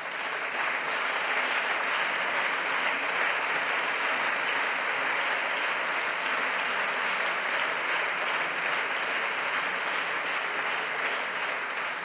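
Many deputies applauding in a parliamentary chamber: dense, steady clapping that thins slightly near the end.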